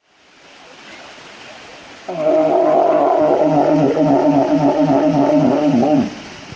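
A walrus giving one long, loud call lasting about four seconds, starting about two seconds in: a low pitched tone that wobbles up and down about three times a second, then cuts off.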